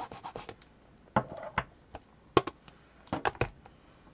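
The last quick strokes of a stamp being scrubbed clean, then a handful of sharp clicks and light knocks as stamping tools are handled and set down on the craft table.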